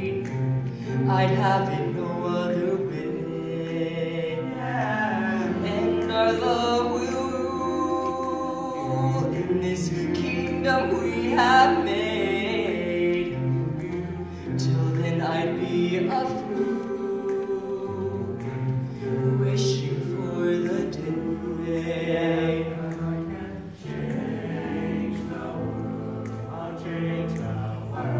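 Male a cappella vocal ensemble singing in harmony: a lead voice at the microphone carries the melody over sustained chords from the group, with a low bass line underneath.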